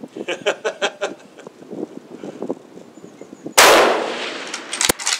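A 7mm PRC bolt-action rifle with a 24-inch barrel fires a single shot about three and a half seconds in, a loud crack that dies away over about a second. A sharp click follows a little over a second later.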